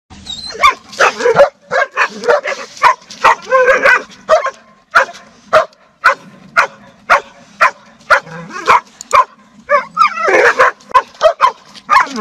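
A dog barking at a cat over and over, short sharp barks about two a second, crowding together about ten seconds in.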